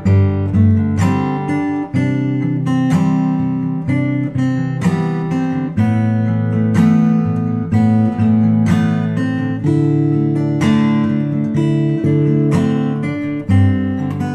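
Acoustic guitar music, strummed and plucked chords.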